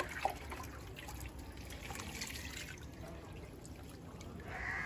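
Water trickling and dripping, with two light knocks right at the start.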